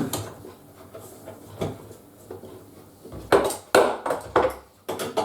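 Clinks and knocks of metal tools and pipe fittings being handled on a work surface, a few light ones early and a louder cluster of three about three to four and a half seconds in.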